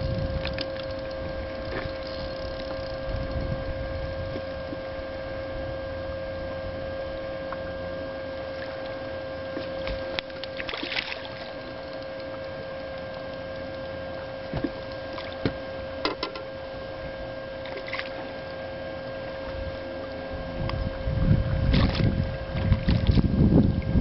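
Steady, even-pitched electric whine of a small boat's electric trolling motor running. Gusts of wind rumble on the microphone at the start and again near the end, and a few brief sharp sounds break in midway.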